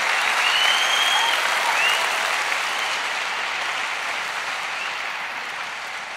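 A large audience applauding, the clapping gradually dying away.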